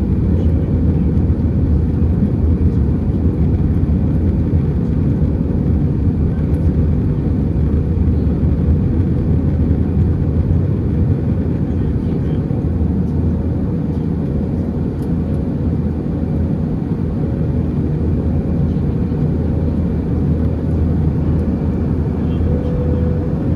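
Steady in-flight cabin noise of an Airbus A320: a low rumble of engines and airflow with a steady hum running through it.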